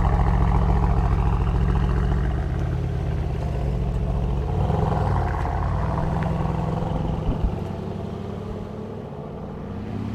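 Mercedes-AMG C63 S's V8 engine running at a steady low speed. Its note shifts about halfway through and it grows quieter over the last few seconds, with one sharp click near the end.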